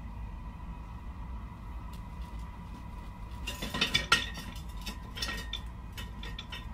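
Metal cooking pots and lids clattering on a brick stove: a dense run of clinks and knocks about three and a half seconds in, followed by a few lighter scattered clinks. A faint steady high tone runs underneath.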